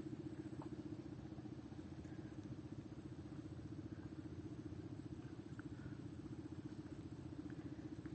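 A small engine or motor running steadily with a fast, even throb, with a thin steady high whine above it.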